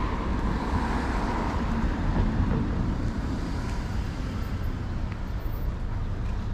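Road traffic passing on a street, a steady rushing noise with a low rumble.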